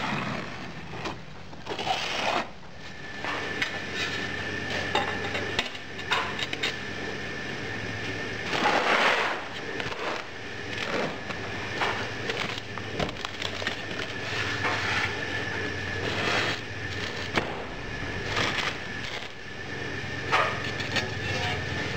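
Moulding sand scraped and rubbed by hand in a metal casting flask, with scattered knocks and clatter as the flask and a flat metal plate laid on it are handled on the bench.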